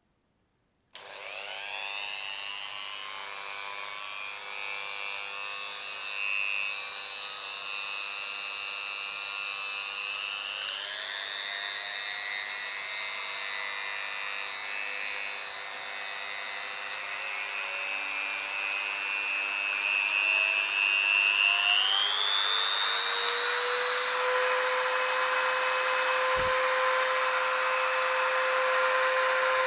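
Parkside PFBS 160 B2 rotary multi-tool switched on about a second in, its small motor running with a steady high whine. The whine steps up in pitch twice, once around the middle and again later, as the speed is turned up.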